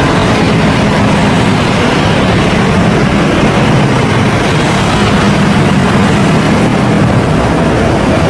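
Lockheed C-130 Hercules turboprop engines running, a loud, steady drone with a low propeller hum that holds level throughout.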